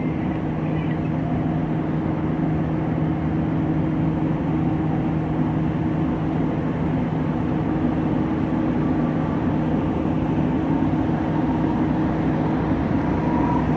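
A 72-inch exhaust fan driven by a permanent-magnet brushless motor, running steadily: an even rush of moving air over a steady low hum.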